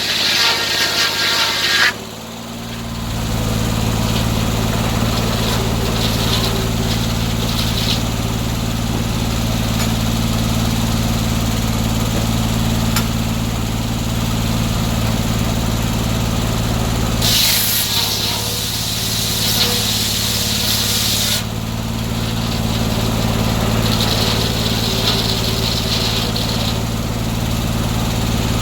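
Engine-driven circular sawmill running steadily, its blade set up skip-tooth with 24 teeth instead of 48. A higher, noisy sawing sound comes and goes over the steady engine note as the blade cuts through wood: briefly at the start, for several seconds past the middle, and again near the end.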